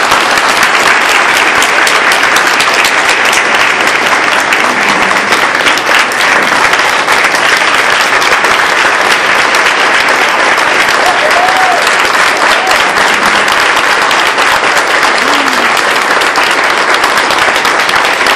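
Audience applauding, a loud, steady mass of clapping with a few voices heard through it.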